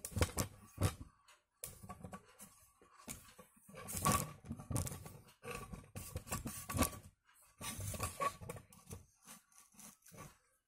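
Irregular knocks and rustling from the phone being handled and moved about, over a faint steady tone.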